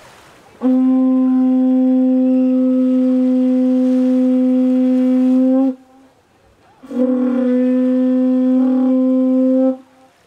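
Conch shell trumpet blown in two long, steady blasts on one held note, the first about five seconds and the second about three, sounded to announce happy hour.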